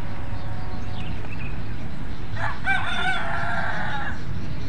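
A rooster crowing once, one call of under two seconds a little past the middle, over a steady low rumble.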